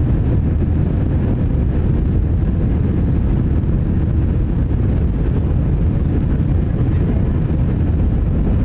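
Airbus A320 cabin noise during the approach to landing: a steady low rumble of the engines and the airflow past the fuselage and wing, heard from inside the cabin.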